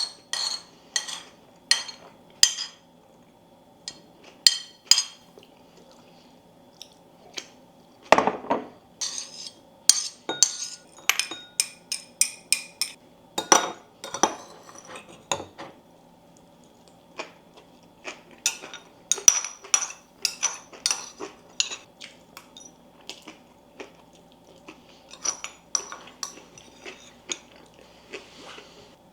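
Cutlery clinking and tapping against bowls and plates during a meal: many short, irregular clinks with a slight ring, now and then a duller knock.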